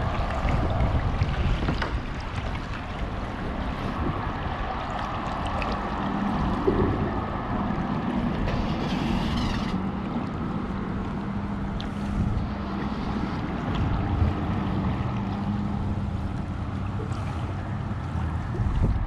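Choppy lake water lapping and splashing against a plastic fishing kayak as it is paddled, with a splash about nine seconds in and wind rushing over the microphone.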